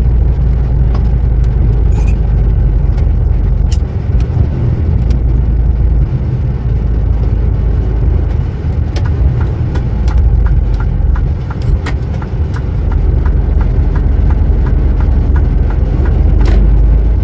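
Lorry cab interior while driving: steady low rumble of the truck's diesel engine and road noise. In the second half a light, regular ticking at about two per second runs for several seconds, with scattered rattles and a sharper knock near the end.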